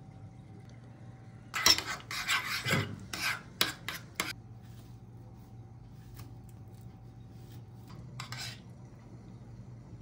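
Metal spoon stirring a thick creamy mixture in a ceramic bowl, scraping and clinking against the sides in a quick run of strokes between about a second and a half and four seconds in, with one more short scrape near the end.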